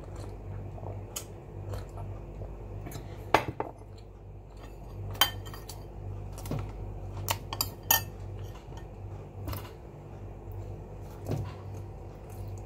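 Spoon and dishware clinking at a meal table, a scattered series of sharp clicks and taps a second or so apart, over a steady low hum.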